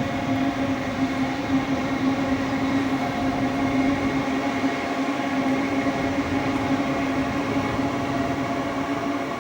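Queensland Rail electric passenger train running slowly: a steady electric hum of several held tones over an even rail rumble.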